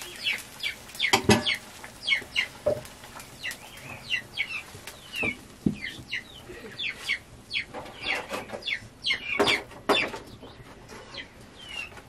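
Chickens clucking and peeping over and over, short high calls that slide down in pitch. A few sharp knocks of cooking pots and utensils cut in, the loudest about a second in.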